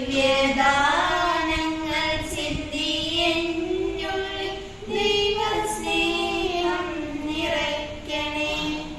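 Two girls singing a Christian prayer song together, voices holding long notes and moving smoothly through the melody.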